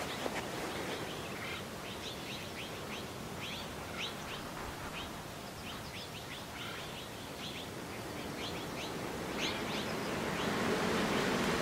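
Small birds chirping in many quick, short high notes over a steady outdoor hiss. Near the end a broad rushing noise swells and becomes louder than the chirps.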